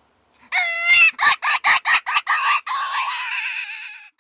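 Hand-held mouth-blown predator call sounding to lure coyotes: a long cry, then a quick run of about six short yelping notes, then a long quavering note.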